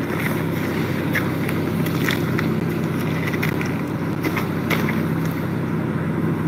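Vehicle engine idling, a steady low hum, with light rustles and small clicks of clothing and handling close to the microphone.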